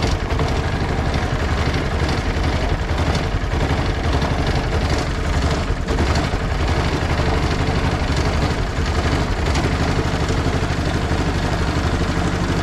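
Small air-cooled single-cylinder engine of a wooden river boat running steadily at close range.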